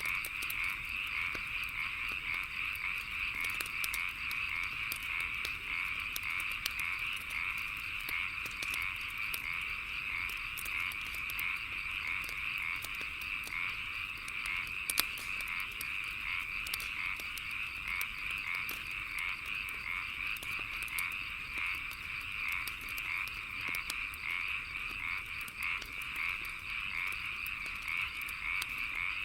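A dense chorus of frogs calls without pause, over the crackle and scattered pops of a wood fire burning. One pop, about halfway through, stands out louder.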